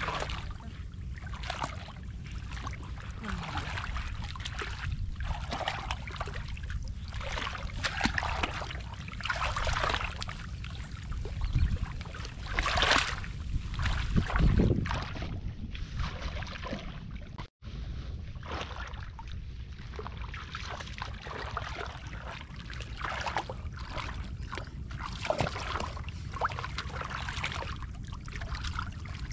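Shallow muddy water splashing and sloshing irregularly as someone wades and gropes through it with bare hands, loudest a little before the middle, over a low wind rumble on the microphone.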